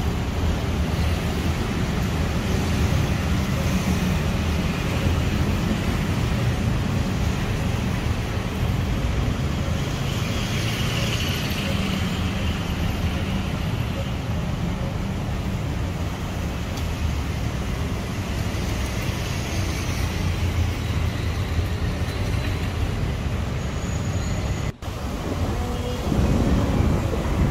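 Steady outdoor ambience made up of a low rumble of road traffic, with a faint mix of distant voices. The sound cuts out briefly near the end.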